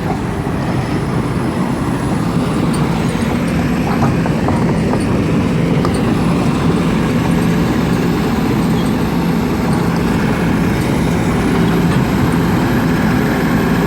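Heavy vehicle's diesel engine running steadily and loud with an even hum.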